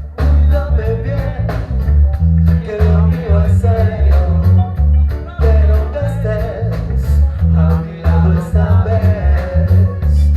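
Reggae band playing a song: a deep, pulsing bass line under evenly repeated guitar chops and a wavering melody.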